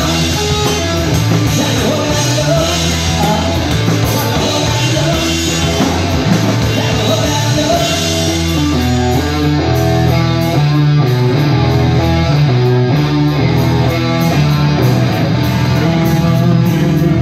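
Live rock band playing: electric guitars and a drum kit, with a man singing into a microphone.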